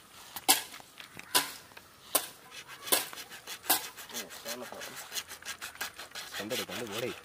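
Repeated rasping strokes on wood, about one a second at first, quickening into a fast run in the second half. Short bits of voice come in between.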